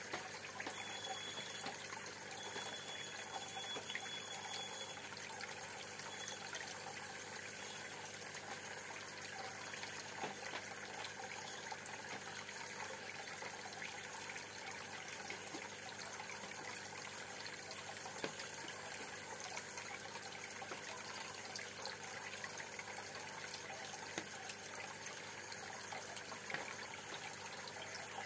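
Steady bubbling and trickling of water in a freshwater aquarium, from a stream of bubbles churning just below the surface.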